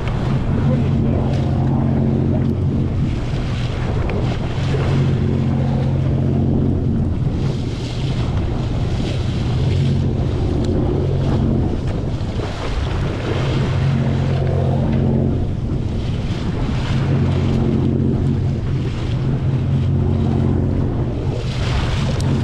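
Sportfishing boat's engine running with a steady low hum that swells and eases every few seconds, under wind buffeting the microphone and rushing sea water.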